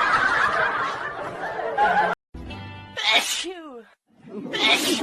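A person's sneeze about three seconds in: a sharp hiss-like burst followed by a short voiced 'choo' falling in pitch. Around it are stretches of busy room noise broken by sudden cuts.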